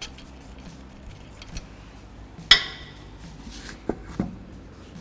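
Light metallic clinking, then one sharp ringing metal clank about two and a half seconds in and two dull knocks near the end, as a car wheel is worked loose from its hub with the lug nuts off.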